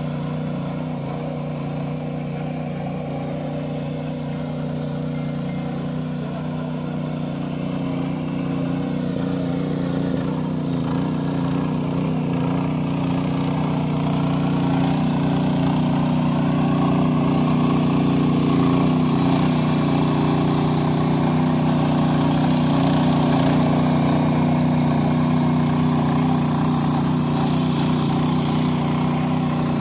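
The small engine of a 7 hp power weeder running steadily while its rotary tines till soil, growing louder partway through.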